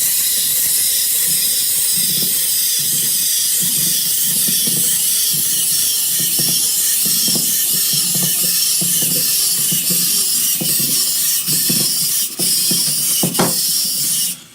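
A loud, steady hiss, like a spray or fizz, with faint low pulses beneath it and a few clicks near the end; it cuts off sharply at the end.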